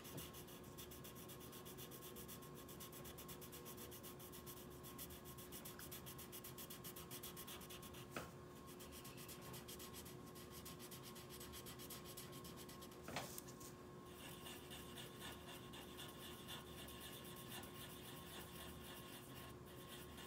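Black marker rubbing on paper in quick back-and-forth strokes as a small area is coloured in, faint. Two light knocks, about eight and thirteen seconds in.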